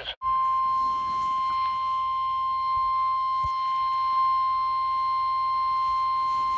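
NOAA Weather Radio's 1050 Hz warning alarm tone: one steady, unbroken high tone starting a moment in, the signal that a new warning is about to be read.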